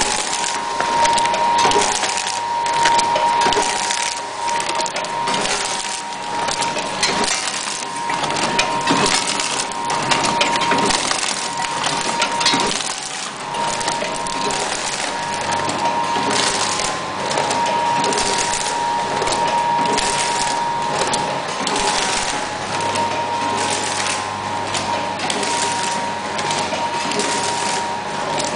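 Automatic multi-grain cereal packaging machine running: a continuous clatter of rapid clicks and rattles from the mechanism and the grain, over a steady high hum.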